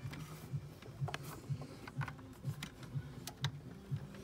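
Scattered sharp clicks and light plastic rattles of vacuum hoses and their fittings being handled and pushed on in a car's engine bay, over a faint low pulse about twice a second.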